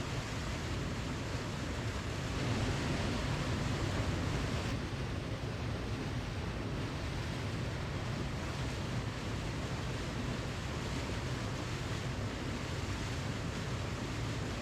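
Waterfall: a steady rush of falling water, swelling slightly a couple of seconds in.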